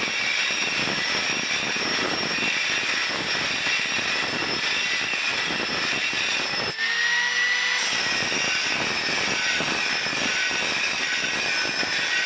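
Angle grinder grinding steel steadily. About seven seconds in it is lifted off the metal for roughly a second and spins free with a clear, slightly rising whine, then goes back onto the work.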